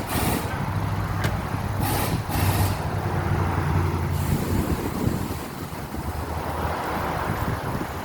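A heavy vehicle's engine running in road traffic, with short hisses of air just after the start and twice about two seconds in. The engine fades into steady traffic noise after about five seconds.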